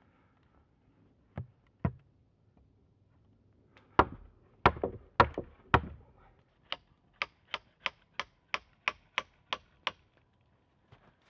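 A series of sharp knocks on wood: two light knocks, then four heavy strikes, followed by about ten lighter, evenly spaced taps at roughly three a second.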